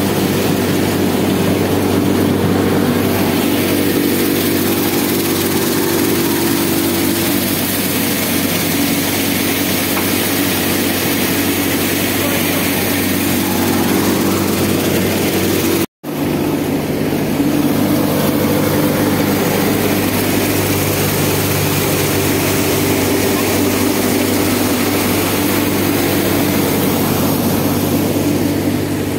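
Tractor-driven soybean thresher running: the Farmtrac tractor's engine and the spinning thresher drum give a loud, steady drone. It breaks off for an instant about halfway through, then resumes at a slightly different pitch.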